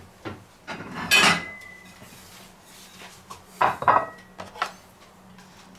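White ceramic plate clattering as it is set down on a wooden board: two clinks, about a second in and again near four seconds, each leaving a short ring.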